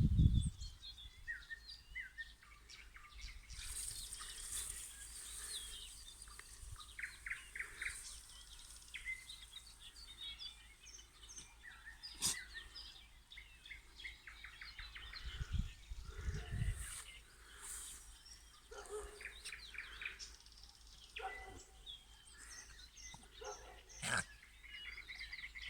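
Nightingales singing: varied phrases of whistles and rapid runs of repeated notes, one after another. A couple of sharp clicks and a brief low rumble break in about two-thirds of the way through.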